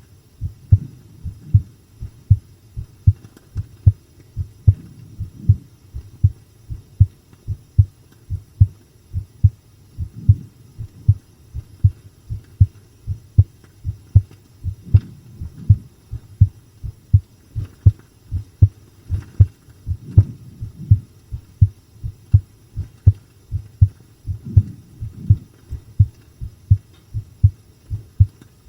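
A person's heartbeat recorded close up: steady, strong double thumps (lub-dub) in an even rhythm, deep and low.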